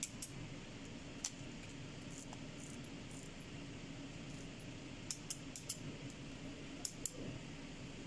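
Scattered light metallic clicks and clinks of a torque wrench and socket worked on the cylinder head bolts: two at the start, one about a second in, a quick run of four about five seconds in and two more near the end. A steady low hum of room noise runs under them.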